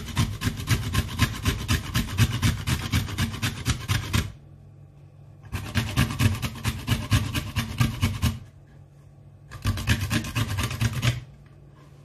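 Peeled bitter kola nut being grated on a flat stainless-steel hand grater resting on a wooden cutting board: quick, rhythmic rasping strokes in three bouts, with two short pauses between them.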